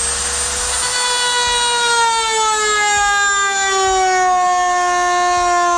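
Handheld rotary tool cutting through the plastic of a Nissan 350Z front bumper: a steady, high-pitched whine that slowly sinks in pitch as the cut goes on.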